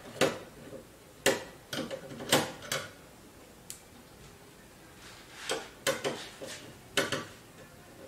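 Scattered metal clicks and clinks of a screwdriver and screws against a desktop PC's steel case as the power supply's mounting screws are taken out, in two short clusters with a lull between.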